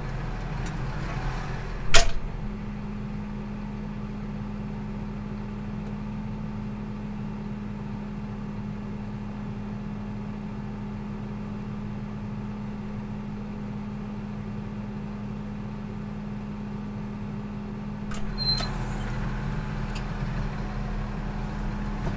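Tractor engine running steadily, heard from inside the cab with the door open. A single sharp knock comes about two seconds in, and there is some clatter and rustling near the end.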